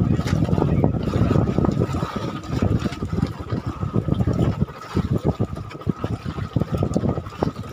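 Wind buffeting the microphone and water lapping against the hulls of outrigger fishing boats at sea: an irregular low rumble that rises and falls in gusts.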